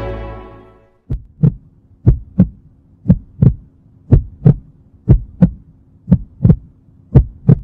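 Heartbeat sound effect: seven double thumps, about one a second, over a faint steady hum, as the music fades out at the start.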